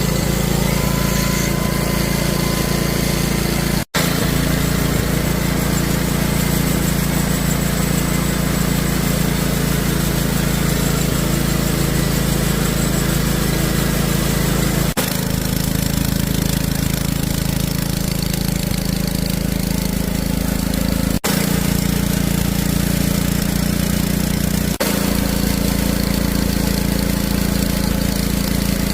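Wood-Mizer portable band sawmill running steadily while milling cedar into lap siding, its engine giving a loud, even drone. The sound cuts off and resumes abruptly a few times.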